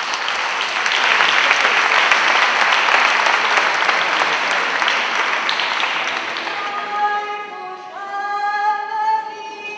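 Audience applause, dense steady clapping that fades out about six or seven seconds in. As it fades, a high singing voice begins the song with long held notes that step in pitch.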